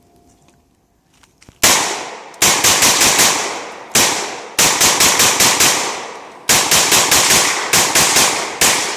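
AR-15 rifle fired rapidly in semi-auto, starting about a second and a half in: about twenty shots in quick strings, several shots a second, each trailing off in a short echo. The rifle cycles without a stoppage, running steel-cased Tulammo ammo.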